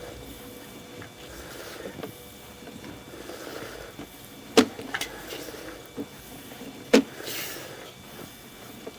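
Sewer inspection camera equipment being handled as the push cable is fed into the line: a few sharp knocks and clicks, two loud ones about four and a half and seven seconds in, over a low steady hiss.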